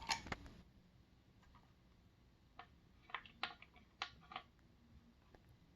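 A few faint, scattered clicks and taps, mostly in the middle stretch, as a CPU cooler is handled and turned around over the motherboard's mounting holes.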